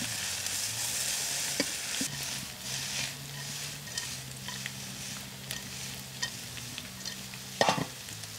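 Onion and carrot strips sizzling in hot oil in a wok while being stirred, with light scrapes and clicks against the pan. The sizzle is loudest in the first two seconds.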